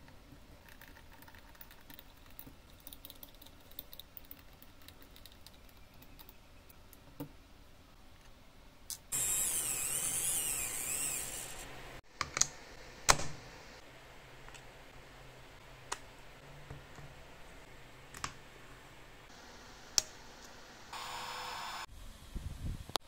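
Light clicks and taps of hands fitting a plastic end cap onto a 3D-printed battery housing. About nine seconds in comes a hiss lasting about three seconds, then sharp clicks as a charger plug is pushed into a power strip socket, and a short buzzing tone near the end.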